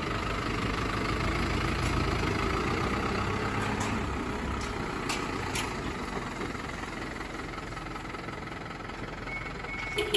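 Fire engine's motor idling steadily, a low rumble with a few faint clicks over it.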